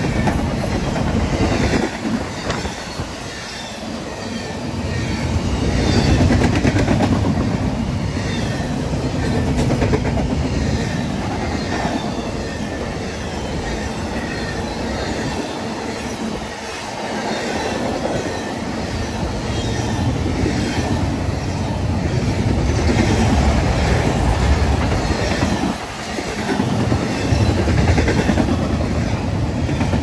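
Freight cars of a CSX intermodal train rolling past close by: a steady rumble of steel wheels on rail, with the loudness swelling and dipping slightly as the cars go by.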